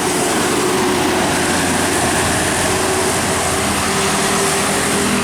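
Tour bus engine running steadily, a loud, even engine and road noise.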